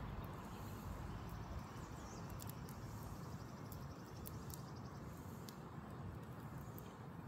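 Brush pile fire crackling: scattered sharp pops and snaps over a low steady rumble, with a faint high trill about two seconds in.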